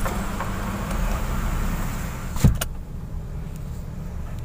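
Kia Picanto running, heard from inside the cabin, a steady low hum with a sharp click about halfway through, after which the sound grows quieter.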